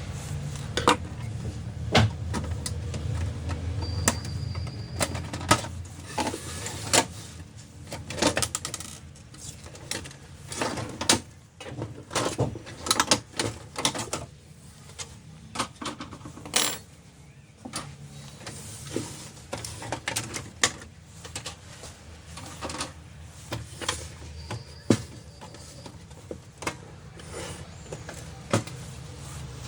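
Irregular clicks, knocks and light clatter of plastic and small metal parts being handled on a Canon LBP 2900 laser printer, with a low hum underneath in the first several seconds.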